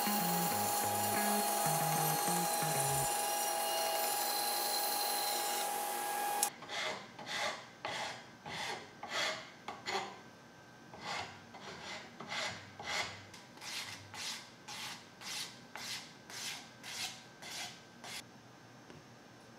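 A power tool runs steadily with a high whine, then cuts off suddenly about six seconds in. After that come about seventeen even back-and-forth hand strokes scraping across wood, roughly one and a half a second, which stop shortly before the end.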